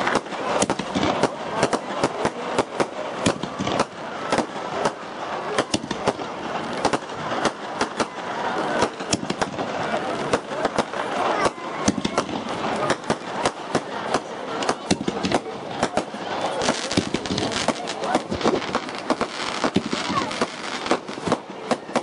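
Fireworks display: many sharp bangs and crackles in quick, irregular succession.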